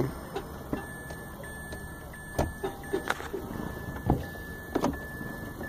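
Clicks and knocks from the automatic gear selector of a 2015 Mitsubishi Mirage as it is handled, several times a second or so apart, over a steady low hum inside the car. A faint high tone keeps cutting in and out behind them.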